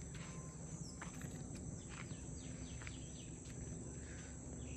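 Steady high-pitched buzz of an insect chorus, crickets among them, with scattered footsteps on loose gravel and a few faint short chirps.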